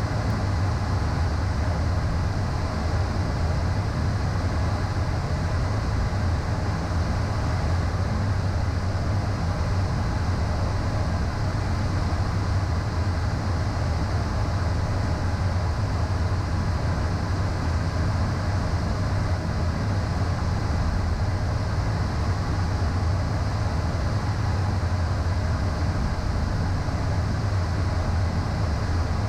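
Steady in-flight cockpit noise of a Beechcraft Premier I twin-turbofan jet: a constant low hum of airflow and engines, with a few faint steady tones above it.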